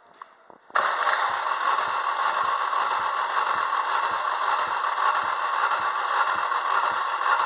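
Starter motor cranking a Chevrolet Lacetti 1.6 16V four-cylinder engine for a compression test, starting suddenly about a second in. It is a steady, loud cranking noise with a regular beat about twice a second.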